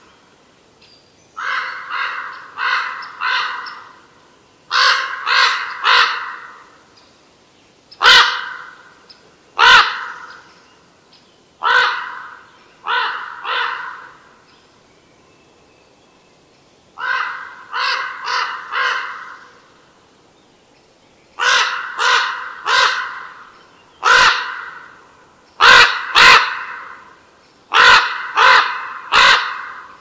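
Crow cawing, harsh calls in runs of one to four with pauses of a few seconds between runs.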